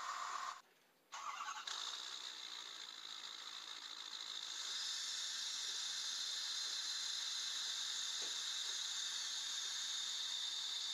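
Ford 6.7 Power Stroke V8 turbodiesel in a 2011 F-250, running and heard at the tailpipe, with a steady high-pitched whine over the engine noise. The sound steps up in level about four and a half seconds in.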